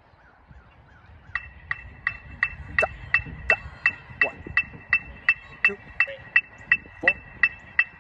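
Electronic metronome clicking through a loudspeaker, starting about a second and a half in and keeping a steady beat of nearly three clicks a second, with a faint steady high tone under the clicks.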